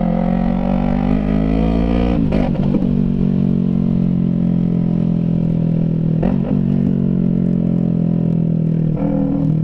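Yamaha MT-03's 321 cc parallel-twin engine through a straight-piped exhaust with no silencer, riding along: the engine note climbs for about two seconds, drops sharply, then runs steadily, with brief dips around six and nine seconds in.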